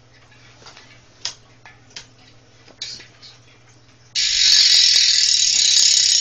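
Cinema 333 BMX cassette hub freewheeling as the wheel spins: a few soft clicks, then about four seconds in the hub's ratchet sets in suddenly with a loud, high, steady rapid clicking.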